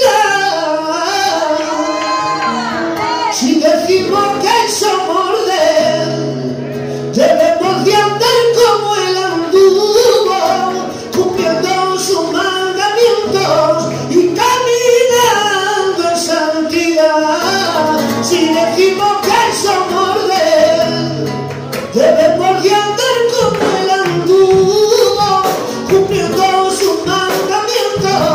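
A man singing a worship song into a microphone, with his own acoustic guitar accompanying him.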